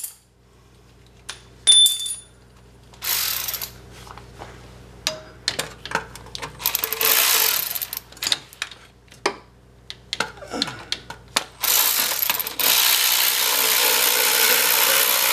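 Cordless power tool driving a starter mounting bolt: a short burst about three seconds in, another around seven seconds, then a steady run of about four seconds near the end. Light metallic clinks of the socket and bolt come before it.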